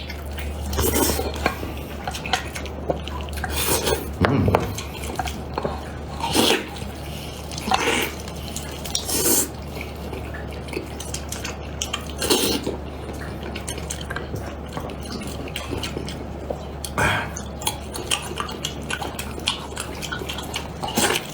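Close-up eating sounds of braised beef ribs eaten by hand: chewing and gnawing meat off the bone in irregular bursts every second or two, over a steady low hum.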